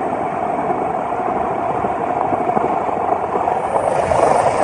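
Steady, loud noise of a helicopter's engine and rotors, heard from on board.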